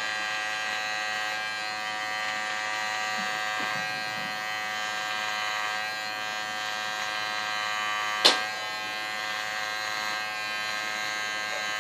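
Electric hair clippers with a guard running steadily with an even buzz as they shave up the side of the head, with one sharp click about eight seconds in.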